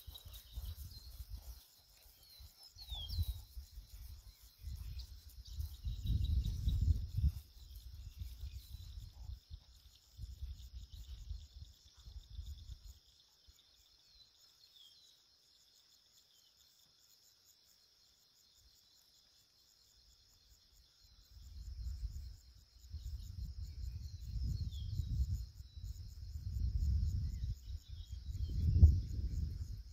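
Insects chirping steadily in a high, even chorus, with a few short bird chirps. Gusts of wind rumble on the microphone for the first dozen seconds, drop away, and return for the last eight or so seconds, the loudest sound when present.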